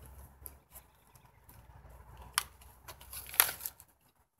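A plastic-and-card retail package being handled and opened: crinkling and rustling with a few sharp clicks, the loudest a little past three seconds in.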